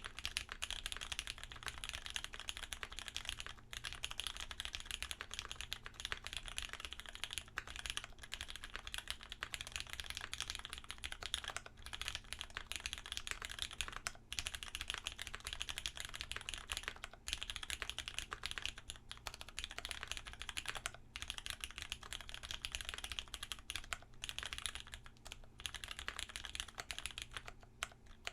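Fast, continuous typing on a tenkeyless mechanical keyboard with lubed vintage Cherry MX Brown switches, an FR-4 plate and GMK keycaps. The keystrokes come as a dense clatter with a few short pauses.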